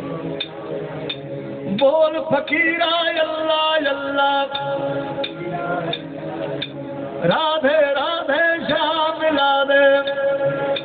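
Male Sufi singer performing live through a microphone, holding long notes and ornamenting them with fast wavering runs about two seconds in and again after seven seconds, over steady instrumental accompaniment with recurring percussive clicks.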